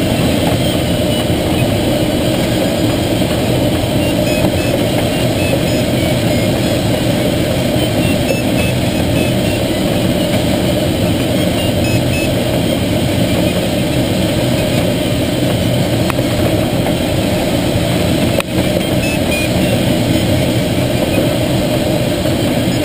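Steady rush of airflow in the cockpit of a Schweizer 1-34 glider under aerotow, a constant noise that does not change.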